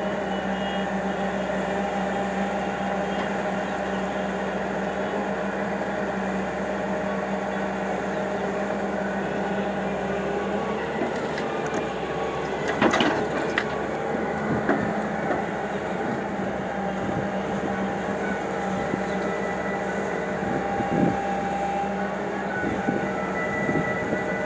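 Hyundai 220LC crawler excavator's diesel engine running steadily while it digs and swings. About halfway through, a loud clatter as a bucketful of soil and stones is dumped into the steel bed of the tipper truck, with a smaller knock later on.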